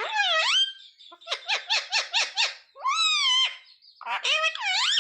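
Indian ringneck parakeet vocalizing in a squawky, speech-like voice. It gives a bending call at the start, then a quick run of about eight short notes, then two more swooping calls near the end.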